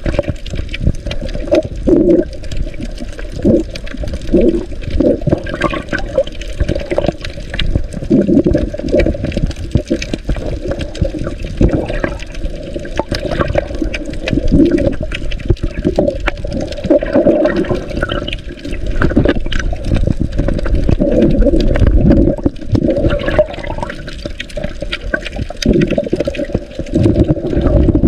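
Muffled underwater rushing and bubbling picked up by a submerged camera, swelling and fading unevenly, with scattered short clicks and knocks.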